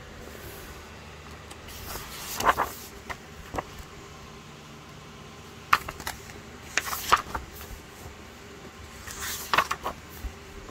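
Paper pages of a coloring book being turned by hand: three turns a few seconds apart, each a rustle of paper with a few sharp flicks as the page goes over.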